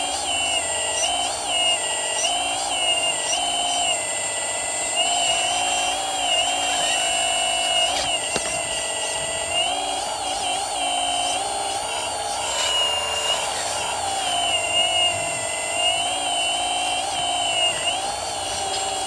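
Electric hydraulic pump of a radio-controlled model excavator whining steadily, its pitch dipping and rising again and again as the hydraulics take and release load, over a constant high-pitched tone.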